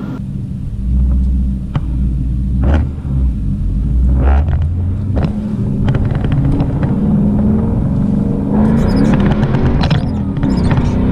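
Ford Mustang GT's V8 engine pulling under hard acceleration, its pitch rising and shifting as it revs up through the gears.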